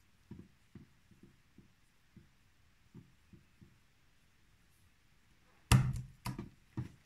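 Cotton macramé cord being knotted by hand on a wooden frame: quiet rubbing and light soft knocks, about a dozen in the first half. Several louder sharp knocks follow in quick succession near the end.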